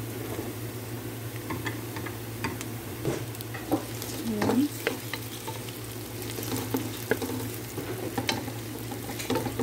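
Raw chicken pieces sizzling in hot oil with sautéed onions in a pot, while a wooden spoon stirs them and taps and scrapes against the pot in scattered clicks. A steady low hum runs underneath.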